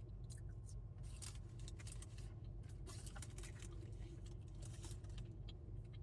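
Steady low hum of a car heard from inside the cabin, with scattered soft clicks and rustles of food and its packaging being handled and eaten.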